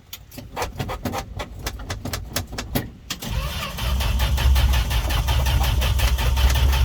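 Dodge D100 pickup's engine being cranked over by its starter on a jumper pack, with an even run of strokes that turns louder and faster, with a heavier low rumble, about three seconds in. The engine is hard-starting after weeks of sitting in the rain, and the owner suspects fuel not reaching the carburettor or moisture in the distributor.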